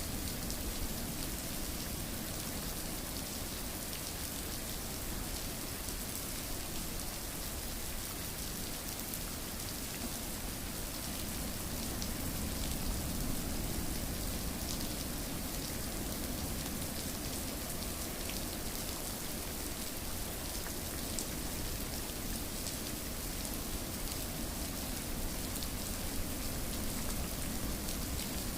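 Steady rain falling on a surface, an even hiss with scattered drop ticks, used as sleep white noise.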